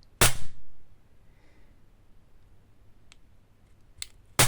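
Airsoft gas blowback pistol dry-fired twice without BBs: a sharp shot with the slide cycling just after the start, a couple of faint trigger and slide clicks, then a second shot near the end.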